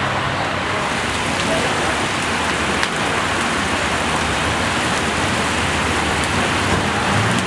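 Steady loud sizzling hiss of food frying in a large pilaf pot, with a few faint ticks.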